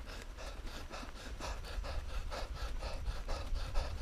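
Mountain bike rider breathing hard in quick, even puffs, about four a second, over a low rumble from the ride along the dirt trail.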